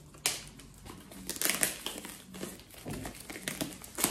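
Packaging rustling and crinkling as a small product box is handled and pried at to get it open, with a sharp tap shortly after the start and another near the end.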